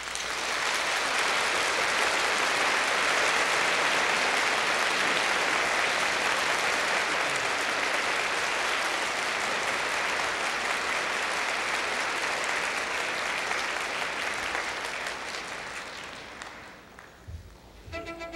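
Concert audience applauding, starting suddenly and dying away near the end.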